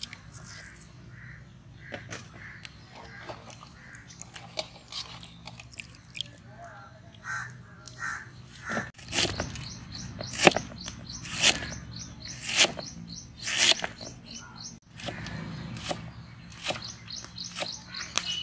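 A cleaver shredding cabbage on a wooden chopping block, with sharp knocks about once a second through the middle of the stretch. Before it, hands swish vegetables in a basin of water. Birds call throughout.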